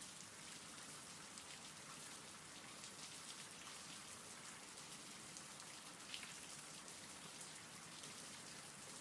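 Faint, steady rain falling, an even patter of drops, with one slightly louder drop about six seconds in.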